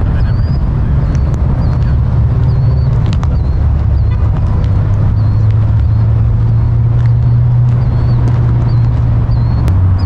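A motor vehicle's steady low running drone, with faint short high chirps repeating a little under once a second.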